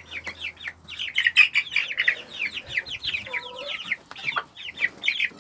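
Several chickens clucking and chirping together, a dense run of quick, high, falling calls.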